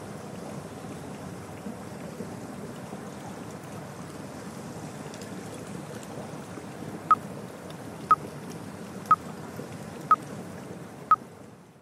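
A steady rushing background noise, then five short, high beeps one second apart near the end: an interval timer counting down the last seconds of the rest break.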